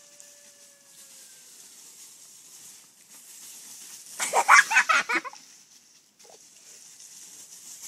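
A burst of high-pitched laughter, about a second long, some four seconds in, over a faint rustle of dry leaves as a German shepherd runs across them.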